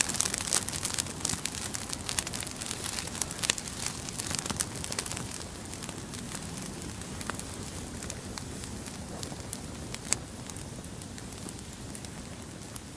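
Fire crackling and popping over a steady hiss. The pops come thick and loud in the first few seconds, then thin out, with one sharp pop about ten seconds in.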